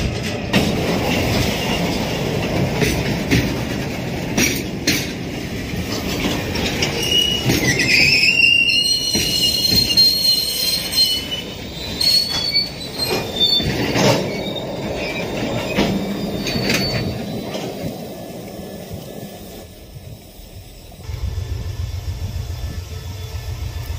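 Train wheels clicking over rail joints as railway cars roll slowly along, with a high-pitched wheel squeal rising and holding for several seconds around the middle.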